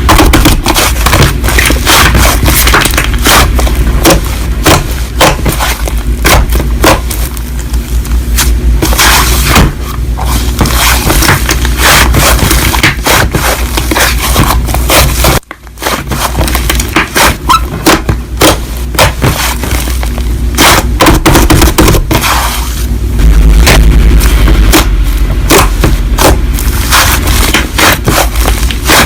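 Crunchy slime being squeezed and stretched by hand: dense crackling, popping clicks, with a brief break about halfway.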